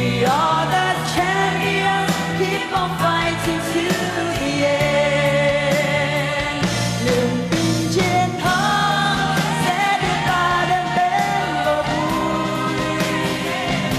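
A live pop song: a female lead vocal singing over a band with a steady bass line and regular drum beats.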